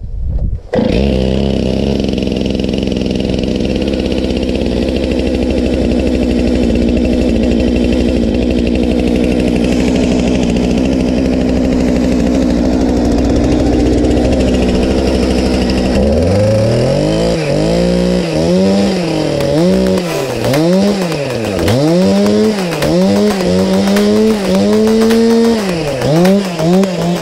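Stihl two-stroke chainsaw engine running at a steady speed, then revved up and down over and over, about once a second, as it cuts into a wooden trunk during chainsaw carving.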